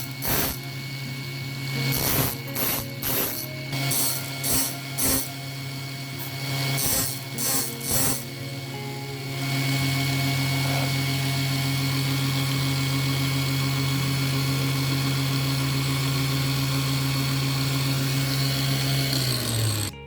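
An electric power tool's motor running with a steady hum. It makes a quick series of short bursts over the first half, then runs steadily and stops just before the end.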